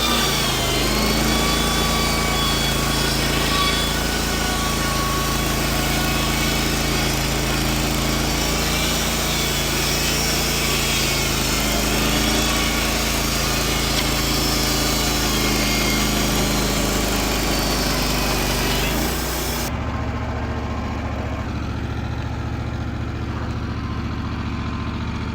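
Wood-Mizer LT15WIDE band sawmill running steadily under power, a motor drone with a higher whine over it. About twenty seconds in the whine drops away and the machine carries on at a lower, slightly quieter run.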